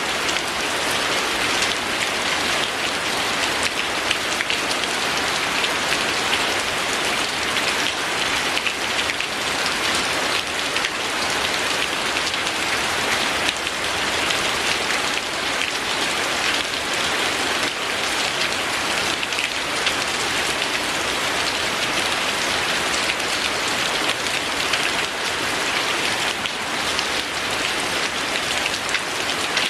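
Steady rain falling: an even hiss of rain with a fine patter of drops, unchanging throughout.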